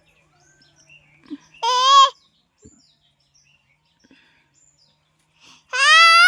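Bird calls: two loud, clear calls, one about one and a half seconds in and a second near the end that rises slightly and then drops.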